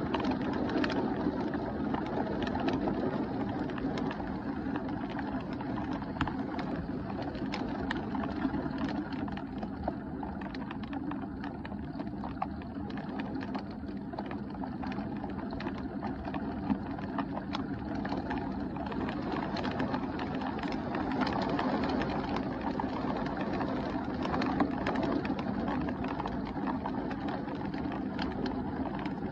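Heavy thunderstorm rain pouring down steadily: a dense rush of noise with many sharp ticks of drops striking close by.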